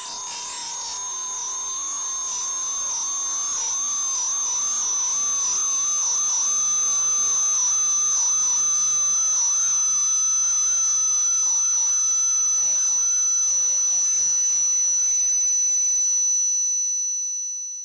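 Synthetic tinnitus-masking tones: several steady high-pitched tones layered over a faint hiss, with a lower tone that wavers slightly. The sound fades out near the end.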